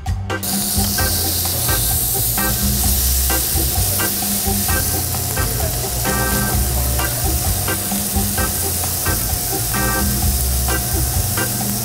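Thin slices of marbled beef sizzling on a hot tabletop grill plate, a steady dense hiss that cuts in just after the start. Background music with a steady beat plays under it.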